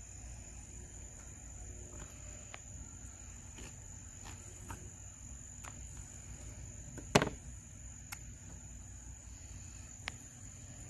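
Crickets trilling in one steady high-pitched tone, with scattered small clicks from a knife cutting a skinned squirrel on a wooden table, and one sharp, louder knock about seven seconds in.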